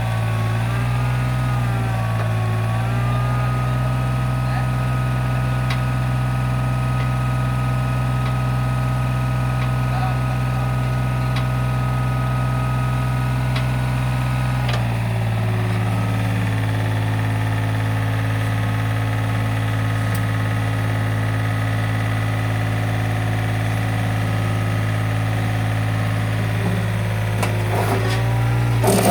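Diesel engine of a Mitsubishi MM30 mini excavator running steadily while the machine lifts an overweight load, its note wavering for the first few seconds, then changing pitch about halfway through as the load on the hydraulics changes. A few sharp metallic knocks come near the end.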